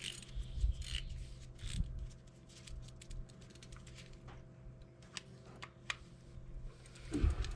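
Motorcycle rear brake parts being rubbed and wiped clean by hand: irregular scratchy rubbing with scattered small clicks and knocks of metal parts.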